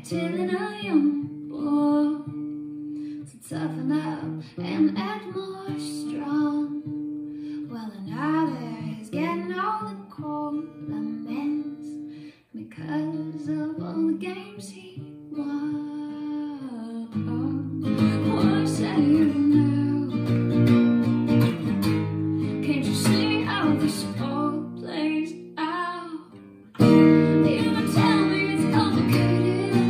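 A woman singing while strumming an acoustic guitar. The guitar grows fuller about halfway through, and the song gets louder near the end.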